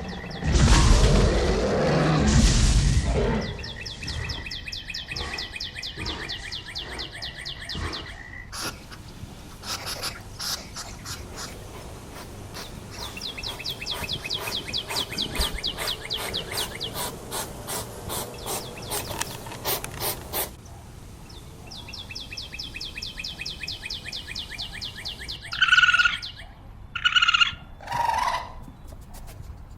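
Bird calls: long runs of rapid high-pitched trills, then separate sharp chirps near the end, after a loud rushing burst in the first three seconds.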